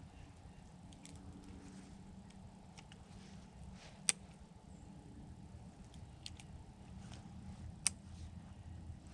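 Small metallic clicks from handling a Heritage Rough Rider single-action revolver while loading .22 Magnum cartridges, two sharper clicks about four and eight seconds in, over a low steady background hum.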